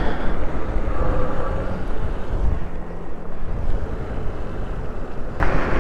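Wind buffeting the microphone and road noise while riding an electric bike, a steady low rumble with a faint hum partway through, getting suddenly louder near the end.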